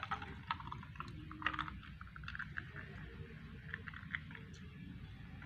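Chocolate milk poured from a blender jug over ice cubes in a glass jar: a faint pour with scattered small clicks and crackles from the ice.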